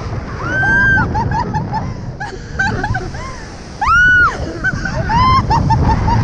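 Women shrieking and laughing: a long high scream about half a second in and another near four seconds, with quick runs of laughter in between, over the rumble of wind on the microphone.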